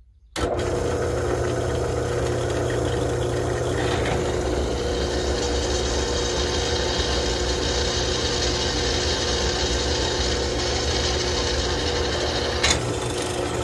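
Drill press starting up about half a second in, then its motor running steadily while the bit drills into a metal plate, with a couple of sharp clicks near the end.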